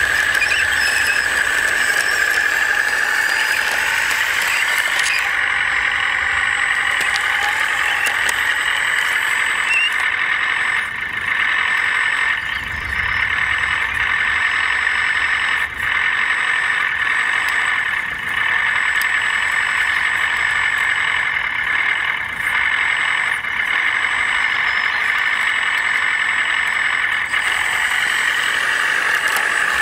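1/14-scale RC construction models running: a steady high-pitched motor and gear whine that drops out briefly several times.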